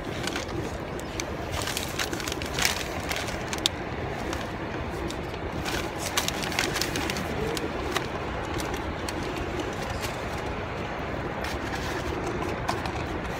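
A running car heard from inside its cabin: a steady hum with scattered light clicks and taps.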